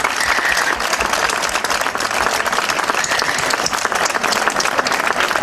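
A crowd applauding: many people clapping steadily, a dense round of applause that keeps up without a break.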